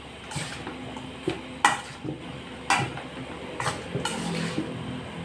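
Metal spoon stirring sliced pork liver and onions in a stainless steel bowl, clinking against the bowl four times, about a second apart.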